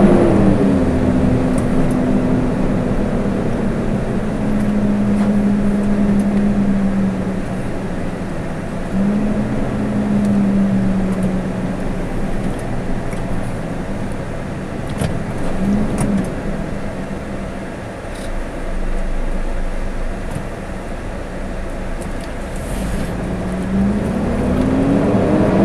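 Vehicle's own engine and road noise heard from inside the cab while driving slowly in traffic. The engine note falls early on, rises and settles again, and climbs near the end, as the vehicle slows to a crawl and moves off.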